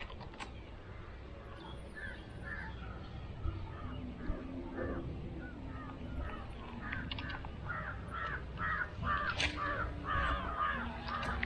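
Crows cawing over and over, the calls growing denser and louder through the second half. Two sharp clicks come through, one just after the start and one about nine seconds in.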